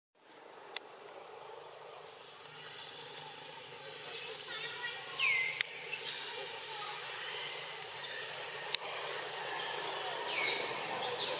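Forest ambience: a steady, thin, high-pitched insect whine, with repeated short high calls that fall in pitch and a few faint clicks.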